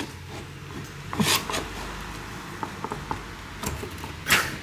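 Scattered clicks and scrapes of a screwdriver working against the dryer's pulley and metal frame as the drive belt is levered back onto the pulley, with the loudest knock near the end.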